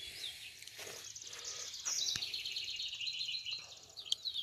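Wild birds chirping and trilling in quick high-pitched runs, busiest in the middle, with a few soft knocks.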